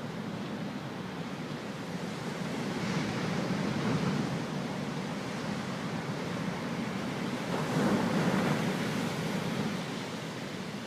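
Ocean waves and swell surging, a steady wash that builds louder about four seconds in and again near eight seconds.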